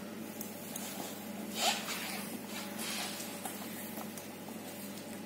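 Steady low hum of indoor room tone. About 1.7 s in comes one brief rushing, hissing sound, with a fainter one near 3 s.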